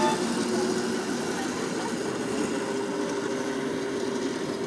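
Motor of a ride-on miniature railway diesel-outline locomotive running steadily as it hauls loaded passenger cars along the track, a drone that steps up slightly in pitch about two seconds in.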